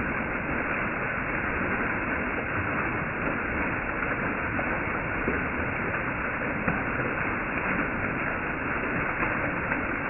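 Small waterfall splashing down a rock face: a steady rush of falling water.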